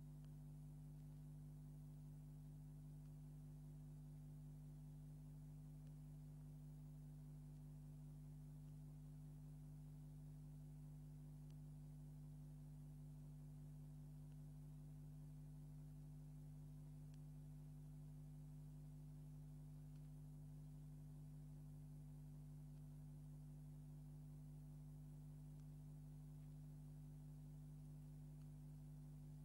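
Near silence: a faint, steady low hum under light hiss, with no other sound.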